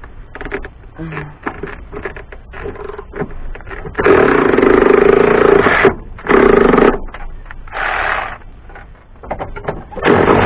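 Power tool with a 10 mm socket running in bursts, driving out the truck's door hinge bolts: four loud runs of a second or two each, separated by short pauses, after a few seconds of light clicks and knocks as the socket is fitted.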